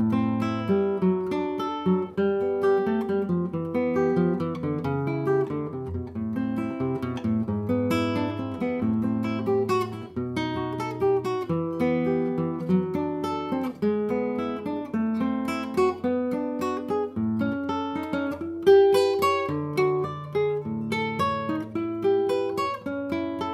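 Solo classical guitar playing a Baroque piece: quick runs of plucked notes over a moving bass line, with no pause.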